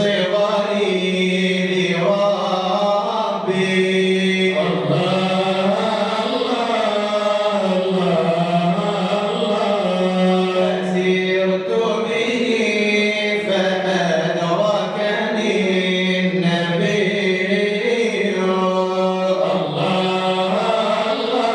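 Unaccompanied chanting of an Arabic madih nabawi qasida, a devotional poem in praise of the Prophet, sung without a break in long melodic lines.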